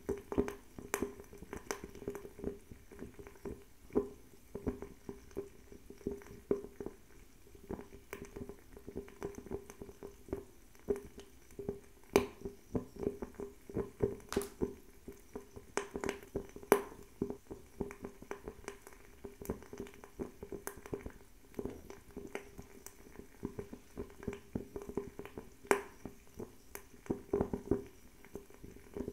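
Bio-ethanol table fireplace burning: irregular sharp crackles and pops, several a second with a few louder ones, over a steady low flutter of the flame.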